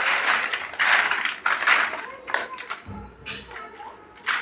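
Plastic building bricks being handled, rattling and clicking in a few loud bursts, the heaviest in the first second and a half.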